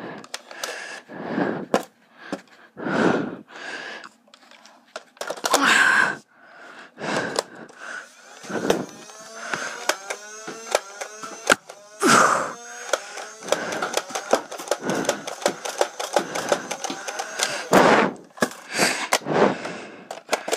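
Nerf Modulus motorized flywheel blaster whirring and firing foam darts. Between about 8 and 13 seconds in, a rising whine comes from the flywheels spinning up. All through there is a rapid scatter of clicks and knocks from darts hitting and the blaster being handled, broken by several louder thuds.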